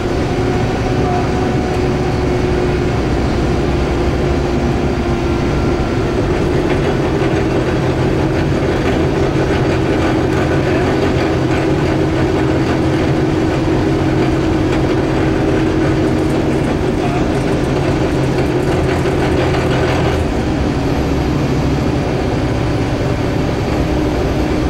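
Scania K280UB city bus heard from inside the passenger cabin while under way: a steady diesel engine and drivetrain drone with road and tyre noise.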